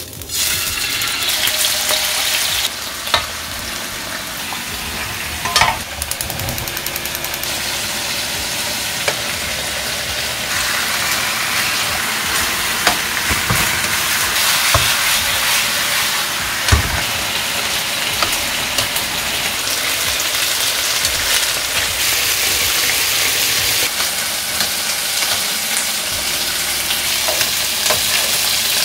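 Thin slices of pork sizzling in hot oil in a frying pan, the sizzle starting as the first slices go in and carrying on steadily as the meat browns. A few sharp clicks of metal tongs against the pan as the slices are placed and turned.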